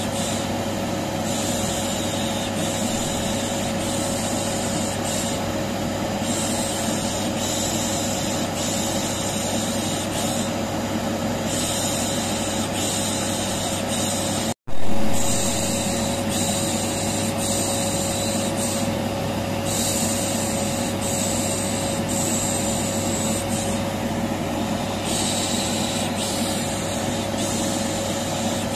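Vacuum cleaner running steadily with a constant hum, overlaid with repeated long 'shhh' shushing sounds that start and stop every couple of seconds, a soothing noise for a colicky baby. About halfway through the sound cuts out for an instant and comes straight back.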